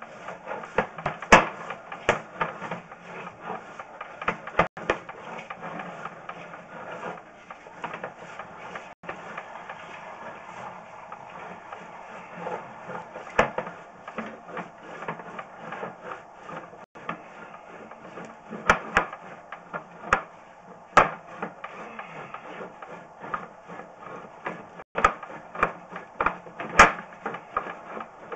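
Sewer inspection camera's push cable being fed off its reel and shoved down the line: a steady sliding, rubbing noise with irregular sharp clicks and knocks from the cable and reel.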